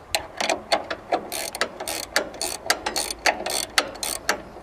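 Ratcheting box-end wrench clicking rapidly, about four or five clicks a second, as it is swung back and forth to back off the motor's belt-tension adjusting bolt and slacken the drive belt.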